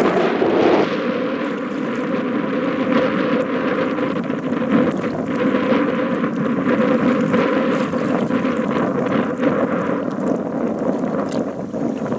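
Wind buffeting the microphone in a steady rushing roar, with water sloshing and splashing around a person wading through a river.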